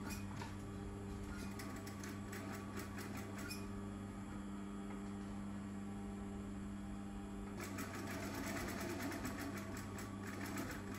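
Brother industrial lockstitch sewing machine stitching satin: its motor hums steadily under the rapid clatter of the needle mechanism, which grows denser and louder about three-quarters of the way through as it sews faster.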